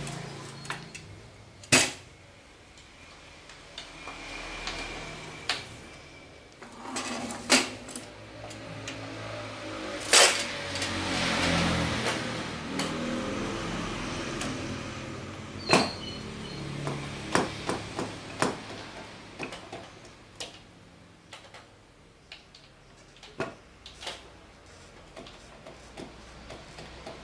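Scattered metal clanks, clicks and knocks from handling a manual steel-rule die bending machine: its lever worked and its metal parts and tool case moved. The strongest knocks come about 2, 7, 10 and 16 seconds in.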